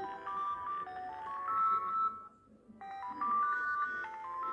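Samsung Galaxy Tab E alarm tone on LineageOS: a short melodic phrase of stepped, mostly rising notes, played twice with a brief pause about halfway through.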